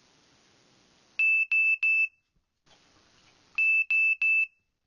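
Electronic alarm beeping: two sets of three short, high, steady beeps, the second set about two and a half seconds after the first.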